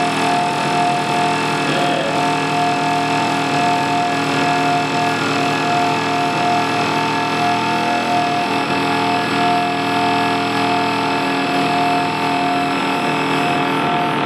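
Experimental electroacoustic music: a dense, steady drone of many held tones layered over a noisy hum, from live electronics. Its highest part fades away in the second half.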